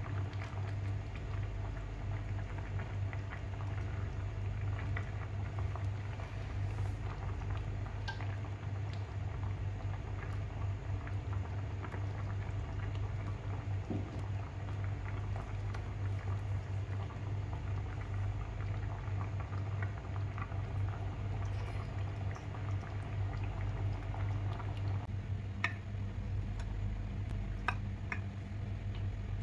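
Creamy white sauce with mackerel bubbling in a pan, many small pops and bursting bubbles over a steady low hum.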